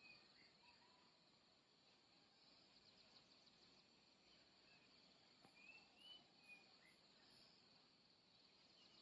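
Near silence: faint outdoor morning ambience with a steady high insect drone and a few faint bird chirps, mostly around the middle.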